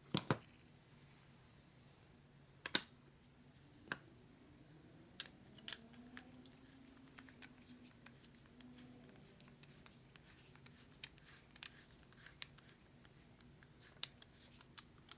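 Sharp clicks and taps of metal brake caliper halves and bolts being handled and fitted together on a workbench: a few louder knocks in the first six seconds, then lighter clicks. A faint hum rises and falls in the middle.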